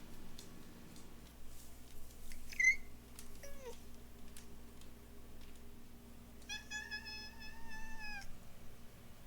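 Domestic cats making squeaky chirps and meows: a short high chirp, then a squeak that falls in pitch, then one long steady meow near the end. Faint scattered clicks between the calls.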